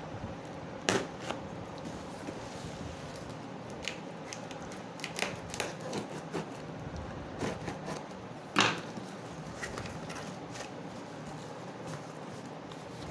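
A cardboard box being opened by hand: a box cutter slits and scrapes along the packing tape and cardboard, with scattered short clicks and rustles as the box is handled. Two louder knocks stand out, about a second in and again past the middle, as the flaps are pulled open.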